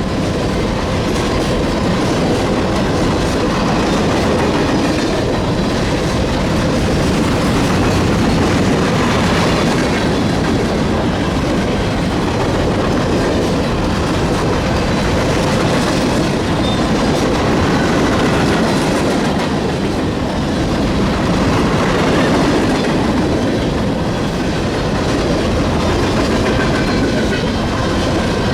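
A train's cars rolling past close by, steel wheels running on the rails in a steady, unbroken rumble.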